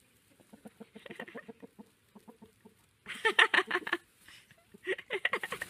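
Chickens clucking: a soft, rapid run of low clucks, then two louder bursts of quick, higher clucking about three seconds in and near the end.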